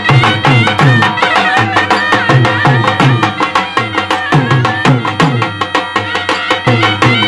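Live Indian folk band music: masak bagpipe and shehnai playing a held, reedy melody over dhol drums. The dhol's deep strokes slide down in pitch, and sharper drum hits fall thickly around them.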